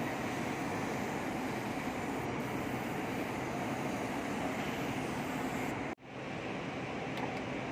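Car engine running steadily, heard as an even mechanical hum with no distinct knock or rattle standing out. The sound cuts out for an instant about six seconds in, then carries on the same.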